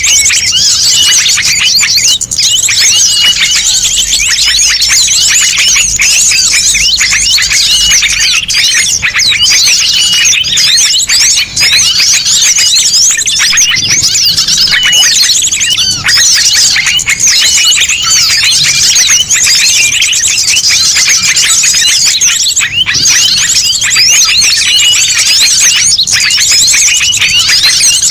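A loud, dense chorus of many small songbirds chirping and trilling at once, a mixed recording of calls used as a lure to draw small birds in. A short high note repeats over and over through the chatter.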